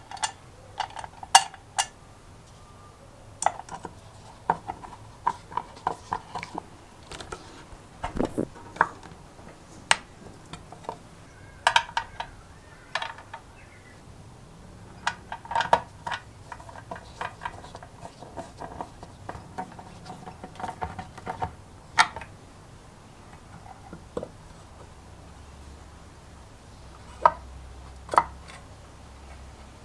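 Irregular clicks, taps and light scrapes of a screwdriver and small metal parts against the painted sheet-metal shell of a Berda Snackwicher sandwich toaster during reassembly. Some knocks ring briefly, the taps thin out in the second half, and two sharp clicks come near the end.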